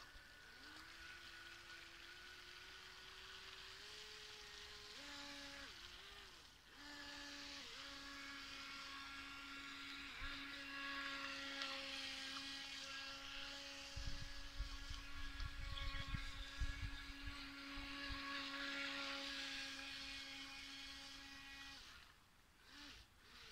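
Small electric RC speedboat motor (iOcean Tiger Shark) running at its higher power setting: a steady whine whose pitch climbs over the first few seconds, dips briefly twice, then holds until it fades near the end. Some low rumbling in the middle.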